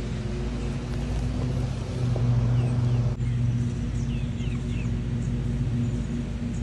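A steady low mechanical hum, like a motor running, with short falling bird chirps over it from a couple of seconds in.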